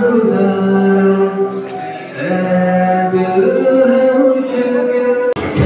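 A young man singing solo into a handheld microphone, holding long sustained notes that slide between pitches. A brief noisy burst comes near the end.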